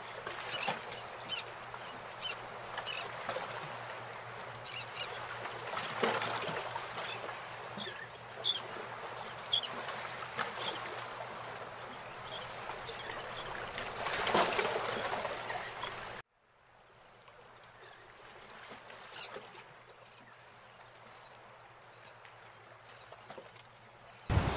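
Sea waves breaking on a sandy beach, with scattered short high chirps over the surf. The sound cuts out abruptly about two-thirds of the way through and comes back quieter.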